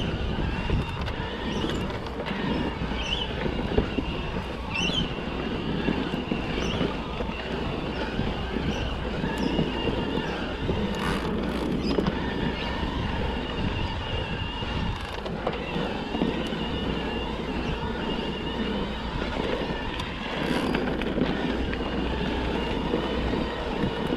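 Electric mountain bike riding on a dirt trail: a steady rumble of knobbly tyres over the ground with rattling from the bike and wind on the microphone, and a thin high whine running through it.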